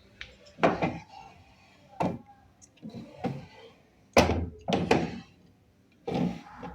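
Antique Singer sewing machine and its cabinet being handled. About nine irregular knocks and thunks come in a few seconds, the loudest about four seconds in.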